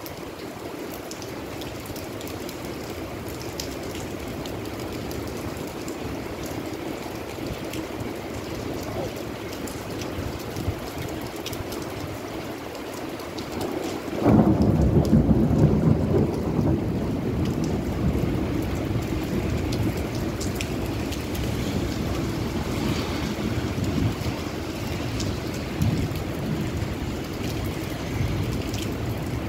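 Steady rain and wind noise. About halfway through, a sudden deep rumble breaks in, loudest for a few seconds, and then lingers, slowly easing.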